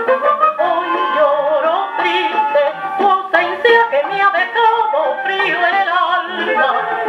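Bolero with a woman singing over an orchestra, played back through an antique upright cabinet phonograph. The sound is thin and boxy, with no deep bass and no bright treble.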